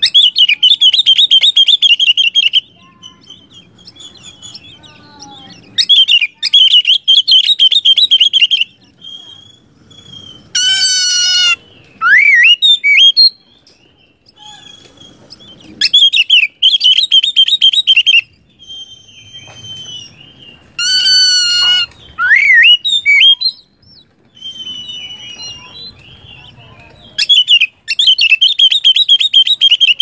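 Oriental magpie-robin (kacer) singing: four loud bursts of fast trilled notes, each two to three seconds long, with harsher rasping notes and quick rising whistles between them.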